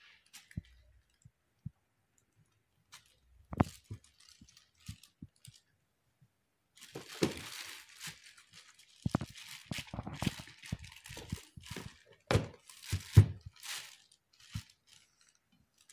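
A kitchen knife cutting and knocking through a block of homemade soap on a plastic sheet: a few scattered knocks at first, then plastic sheeting crinkling and rustling with a run of sharp knocks from about seven seconds in.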